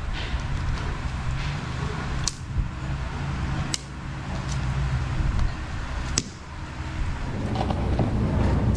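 Plastic interlocking deck tiles being pressed and snapped together by hand: three sharp clicks, a second or two apart, over a steady low rumble.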